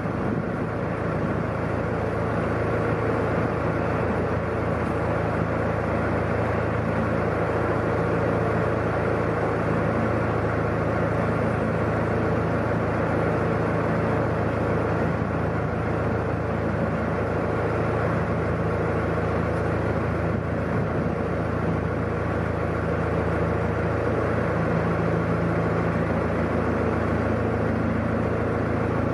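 Narrowboat diesel engine running steadily at cruising speed, a constant low drone heard from on board.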